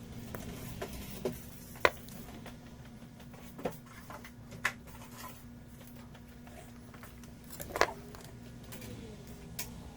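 Small tools clicking and tapping at a soldering bench: a handful of scattered sharp ticks, the loudest about two seconds in, over a steady low hum.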